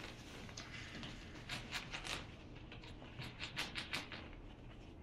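Tibetan terrier puppy playing with a soft toy: scattered short rustling scrapes and clicks, bunched about a second and a half in and again around three and a half seconds in, over a low steady room hum.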